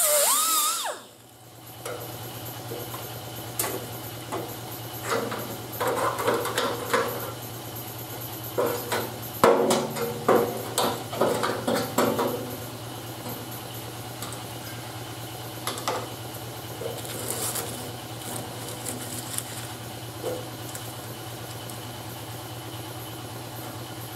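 A grinder cutting into sheet steel stops about a second in. After that there is a steady low hum, with a stretch of intermittent knocks and clatter in the middle.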